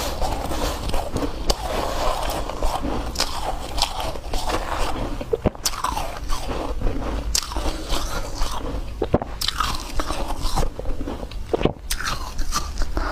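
Real snow being bitten and chewed: dense, crisp crunching of packed snow, bite after bite, with a few brief breaks.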